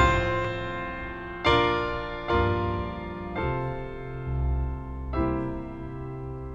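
Slow, gentle solo piano music: notes and chords struck every second or two and left to ring over soft bass notes.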